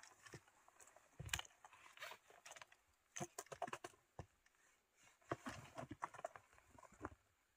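Hikers' footsteps on a rocky mountain trail: faint, irregular knocks and scuffs of boots on stone and gravel.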